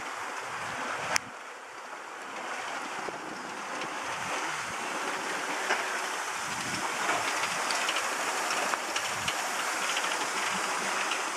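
Prototype buoyancy engine running with its water pump: a steady rushing, water-like noise with scattered light ticks. A single sharp click comes about a second in.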